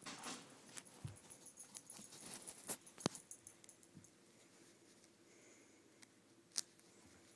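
Faint rustling and scattered light clicks from a hand petting and playing with a small puppy on a carpet, with two sharper clicks, one about three seconds in and one near the end.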